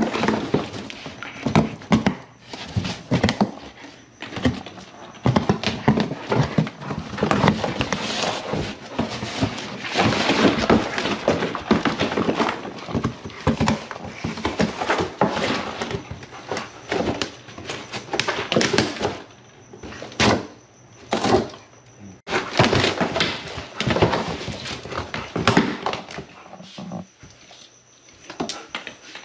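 A German shepherd pawing, scratching and pushing at a cardboard box, with irregular scraping and thumps and plastic ball-pit balls knocking about. There are a couple of short quieter pauses past the middle.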